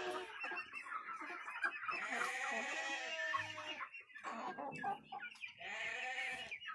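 A flock of Light Brahma chickens clucking and calling over one another, many short arched calls overlapping, with brief lulls about four and five and a half seconds in.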